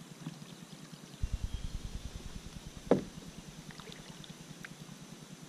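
Kayak handling on the water: a low bumpy rumble for about a second, then one sharp knock against the plastic hull about three seconds in, followed by a few faint ticks.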